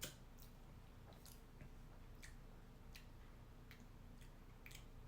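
Near silence with faint, irregularly spaced mouth clicks and lip smacks, about a dozen, the slightly louder one right at the start, made while tasting a mouthful of whiskey.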